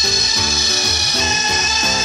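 Background music with a plucked, rhythmic bass line over the steady high whine of a RotoZip spiral saw cutting a circular hole in a wooden board.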